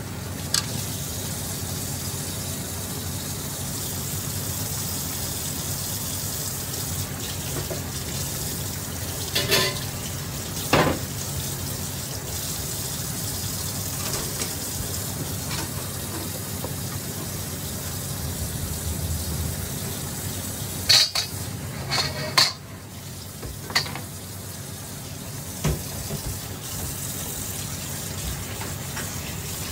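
Pork and chicken adobo sizzling in a pan, with a metal utensil clinking against the pan several times as it is stirred; the loudest clinks come about two-thirds of the way through.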